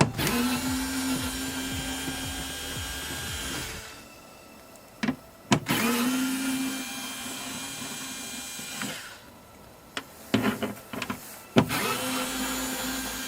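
A power driver with a 10 mm socket spins bolts out of a car door in three runs, each spinning up quickly and then holding a steady pitch. Short clicks and knocks come between the runs.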